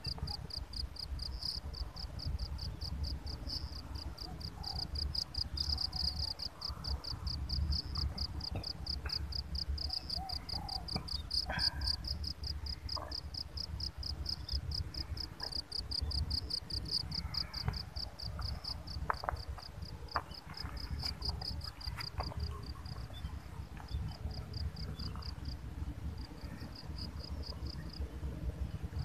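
An insect chirping in a steady, rapid, high-pitched pulse, cricket-like, pausing briefly twice near the end.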